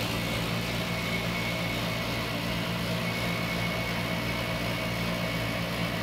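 Trane Odyssey outdoor HVAC unit running with a steady hum, with a thin high whine above it.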